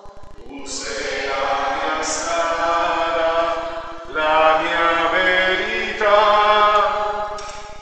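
A slow hymn sung in long held notes. The notes change about a second, four seconds and six seconds in.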